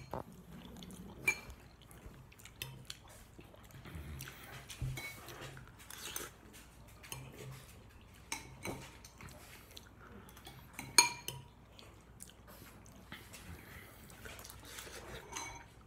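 Fork clinking and scraping against a bowl of noodle soup while eating, in scattered sharp clinks; the loudest comes about eleven seconds in.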